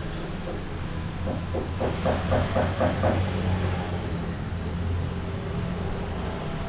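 Steady low rumbling background noise with a hum. About one to three seconds in comes a brief run of faint, rapid pulsing.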